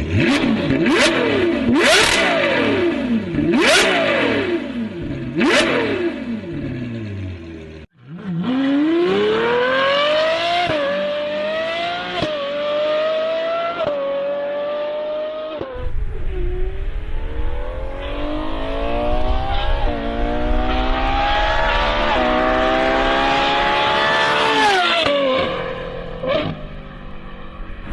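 Ferrari 812 Superfast's V12 engine revved hard about five times, each rev falling away with sharp exhaust pops and bangs. Then it accelerates hard through several upshifts, the pitch climbing and dropping back at each change, on two separate runs, with one more pop near the end.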